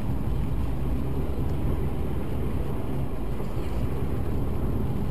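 Steady engine and road noise inside a moving car, recorded by a dashcam, with tyre hiss from the wet road.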